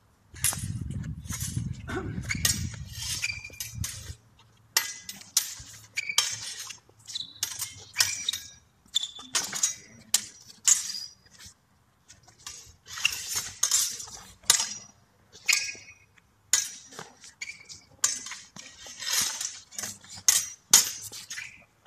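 Heavy steel training sabres clashing blade on blade: quick flurries of sharp, ringing metallic clinks, separated by short pauses between exchanges.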